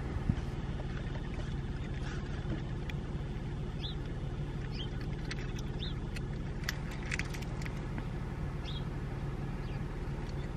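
A car running, heard from inside the cabin as a steady low rumble, with a few faint short high chirps and light clicks over it.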